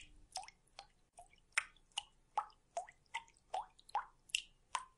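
Water dripping in a steady, slightly uneven series of small, faint plinks, about two or three a second, running as background ambience under the scene.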